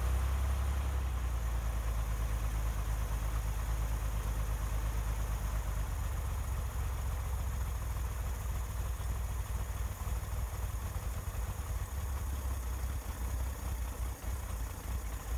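Chevrolet Corvair air-cooled flat-six engine idling steadily on a newly fitted electronic ignition, with a low, even rumble. The idle is running a little low.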